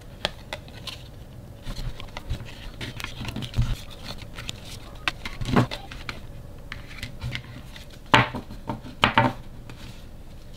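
Stiff card photo tags being flipped through by hand and set down on a wooden tabletop: scattered taps, clicks and card rustling, with a few louder knocks in the second half.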